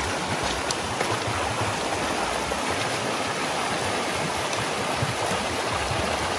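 Mountain creek rushing steadily, a normally dry bed now running high with rainwater, deep enough that it has to be waded.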